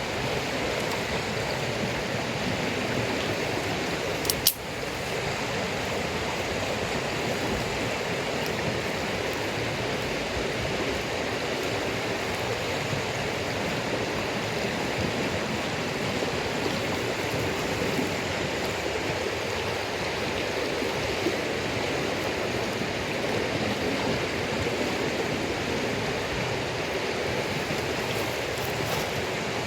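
Steady rushing hiss of running water, with a sharp double click about four and a half seconds in.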